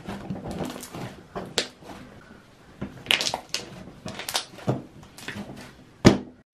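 Hands squeezing and kneading fluffy slime on a table: irregular squishy clicks and pops as the slime is pressed, with one sharp thump about six seconds in.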